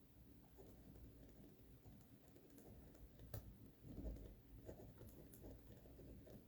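Near silence with faint, scattered clicks and taps, most of them in the second half.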